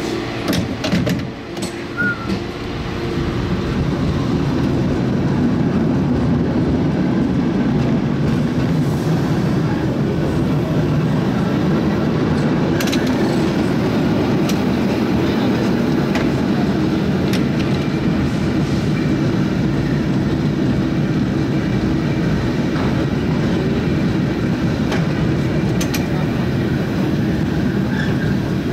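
San Francisco cable car running along its track: a steady rumble of the car on its rails, growing louder over the first few seconds and then holding, with a few sharp knocks near the start and faint clicks later.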